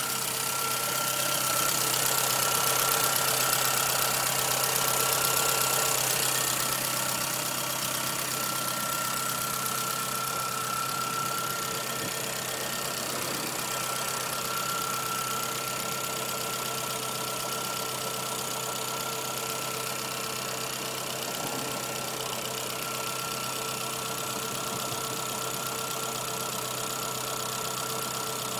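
1997 Suzuki Swift 1.3 L four-cylinder engine idling steadily with a rapid light ticking noise, a little louder for a few seconds near the start.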